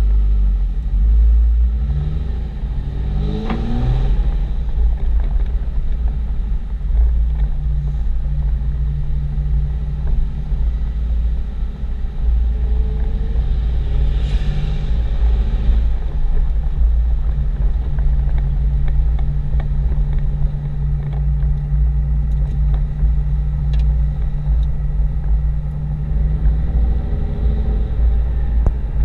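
Cab-interior sound of a 2007 Dodge Ram 2500's 5.9-litre Cummins inline-six turbo-diesel driving through the gears of its G56 six-speed manual: a deep rumble, with the engine note rising about three seconds in as it pulls, then holding a steady drone at cruise.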